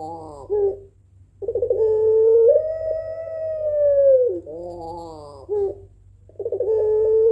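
A ringneck (Barbary) dove of the puter pelung strain cooing in long, drawn-out calls. Each coo starts with a quick stutter, steps up to a long held note, then falls away into a wavering trill. The tail of one coo comes first, then after a short pause one full coo, and another begins near the end.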